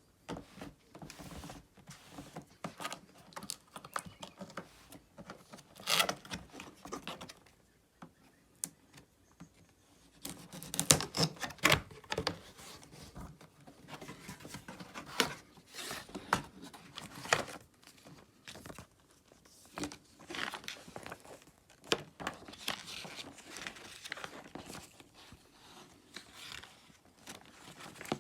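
Coffee machine packaging being opened by hand: irregular crinkling, rustling and tearing of plastic and cardboard, with scattered knocks and a louder flurry about eleven seconds in.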